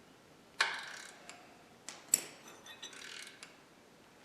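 Hand ratchet and socket working a reverse-Torx engine mount stud loose: a sharp metallic click a little after the start, a couple more clicks about two seconds in, then a short run of small ratcheting clicks.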